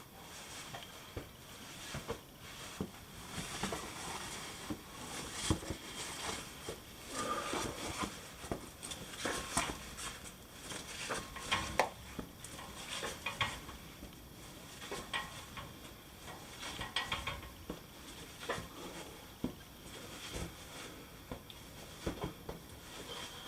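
Irregular clicks, knocks and scraping with rustling, the handling noise of someone moving over rock and handling gear close to the microphone; the busiest stretch falls in the middle.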